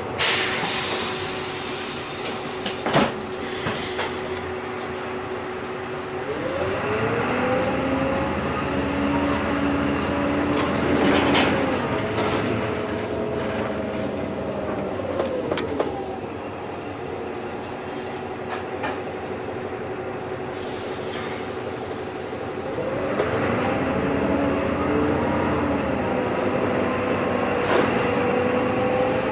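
City bus heard from inside near the front, its drivetrain whine rising about six seconds in, holding steady, and falling away again a few seconds later. It settles to a steady hum, then the whine climbs again a little after twenty seconds as the bus picks up speed once more. A few sharp rattles and clicks of the bus body come through.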